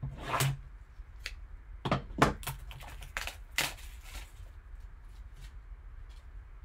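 Scissors snipping into the shrink wrap on a trading card box, then a cluster of sharp crackles as the plastic film is torn and peeled off, quieter after about four seconds.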